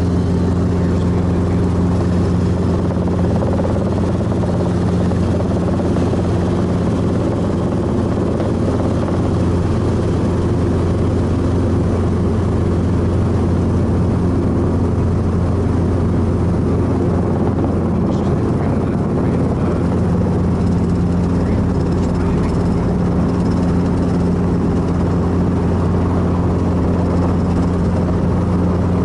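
Piston-engined light helicopter's engine and rotors running, heard from inside the cabin as a steady low drone.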